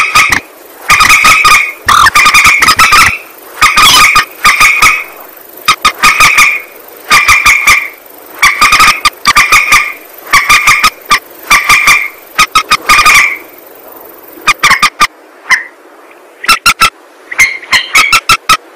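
Lure-call recording of a mandar (rail) calling: loud, short two-pitched notes in half-second bursts about once a second, with sharp clicks running through them. The calls pause briefly a little past the middle, then start again near the end.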